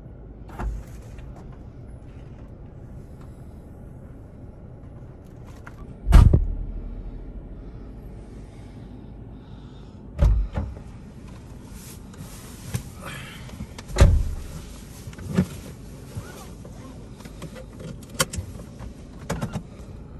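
Inside a Toyota SUV: a low steady rumble broken by about five heavy thumps, the loudest near the start of the second third, from doors or the car's body jolting. A faint high steady whine comes in about halfway.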